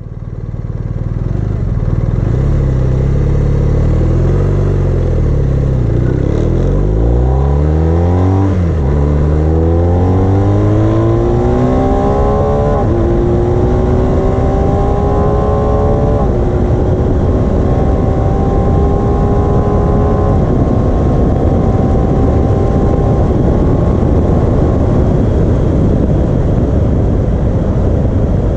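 BMW R1250RS's boxer-twin engine, fitted with an Akrapovic slip-on exhaust, pulling away and accelerating hard. The pitch climbs and drops sharply with each of about four upshifts, then the engine settles to a steady cruise under rising wind noise.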